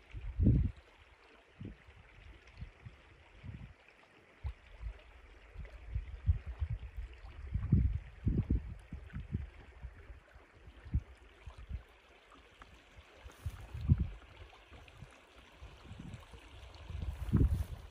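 Shallow river water running steadily, with irregular low rumbles and thumps, the loudest about half a second in and again near the end.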